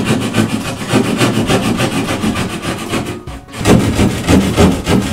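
Drywall jab saw cutting through a drywall wall by hand: quick back-and-forth rasping strokes, with a short break a little after three seconds in.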